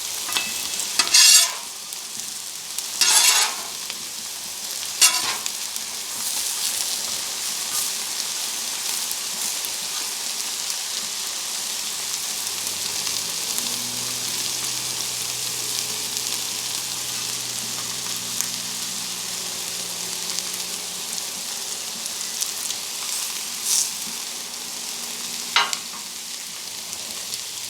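Chicken thigh pieces sizzling steadily on a Blackstone flat-top griddle, broken by a few short metal spatula scrapes as they are flipped and moved: three in the first few seconds and two more near the end.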